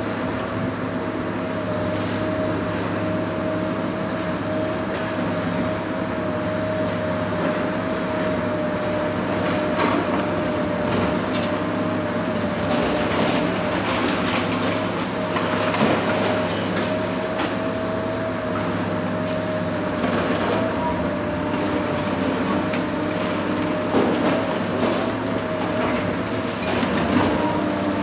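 Heavy demolition excavator at work: its diesel engine runs steadily under load with a constant whine, while scattered knocks and crunches come from the work, louder in the middle and near the end.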